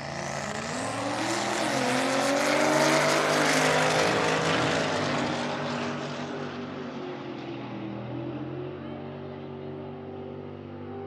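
Race car accelerating hard down a drag strip, its engine getting louder to a peak about three seconds in and then fading as it moves away.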